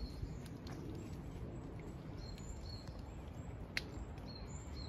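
Outdoor farmyard ambience: short, faint bird chirps repeating every half second or so over a low steady rumble, with a single sharp click near the end.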